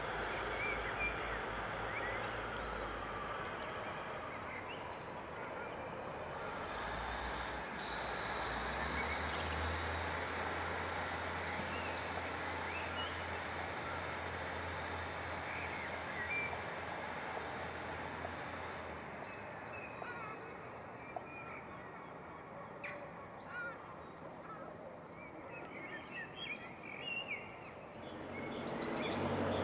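Outdoor ambience: a steady wash of distant background noise with birds chirping. A low engine hum runs through the middle. Near the end a vehicle's rumble starts to build and grows louder.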